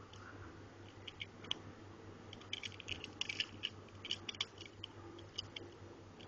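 Hands handling a small die-cast toy car and its packaging: a run of small sharp clicks and crinkles, busiest in the middle, over a faint steady hum.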